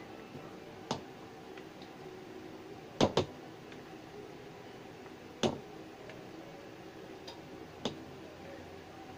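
Plastic mixing bowl knocked against the rim of a metal cake pan to shake out the last of the cake batter: a few separate sharp knocks, the loudest a quick double knock about three seconds in.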